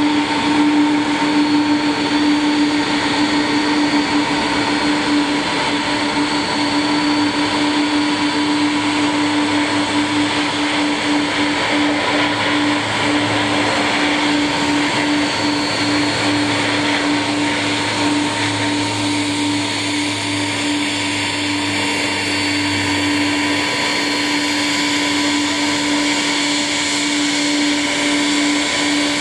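Bombardier Dash 8 Q400's twin Pratt & Whitney PW150A turboprops with six-bladed propellers, run up to takeoff power for the takeoff roll and lift-off. A steady, loud drone with a low propeller hum that swells through the middle of the roll.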